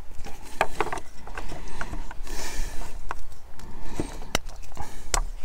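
Sharp plastic clicks and knocks as a small folding gas-canister stand is opened out and a metal gas canister is handled, with a brief rustle about halfway through.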